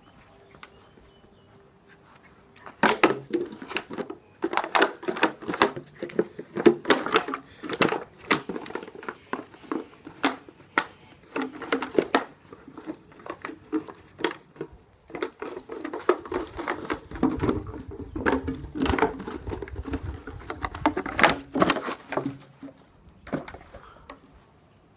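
A Jack Russell terrier puppy biting and shoving an empty plastic water bottle, the plastic crackling and clattering in quick irregular clicks that start about three seconds in and die away near the end.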